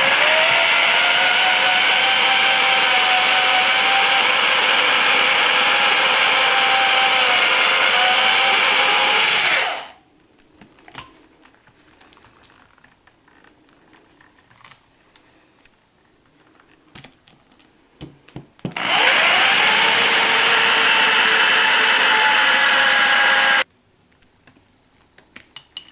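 Electric drill drilling out rivets: a steady whine that spins up, runs for about ten seconds and stops, then after a pause with small clicks and taps, runs again for about five seconds.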